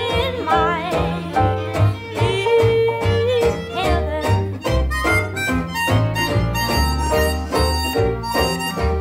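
Background music: a band tune with a wavering melody line over a steady bass beat, about two beats a second.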